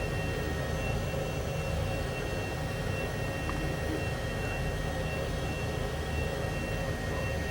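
Heater running with a steady low rumbling noise, with thin steady whining tones above it: the abnormal noise the heater is making.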